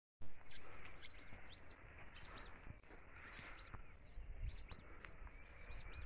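Small songbirds calling: a fast, busy run of high chirps and short down-slurred notes throughout.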